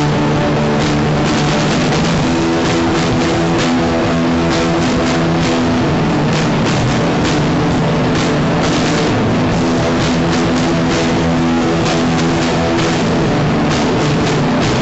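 Loud rock music: distorted electric guitar chords that change every few seconds, over a drum kit with many cymbal hits.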